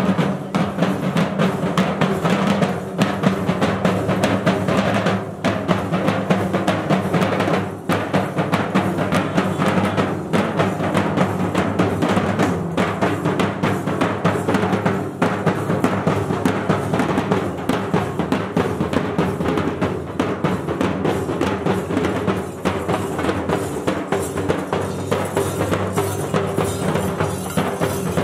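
Kerala procession drum ensemble (singari melam) of stick-beaten barrel drums playing a fast, continuous, unbroken beat.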